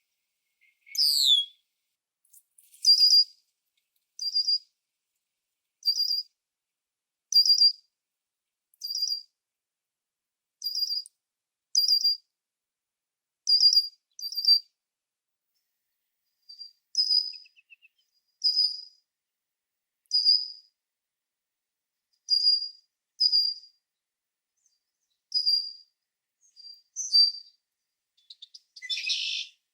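Red-winged blackbird calling: a falling whistle about a second in, then a long series of short, sharp, high calls about one every one and a half seconds, ending with a harsher, noisier call.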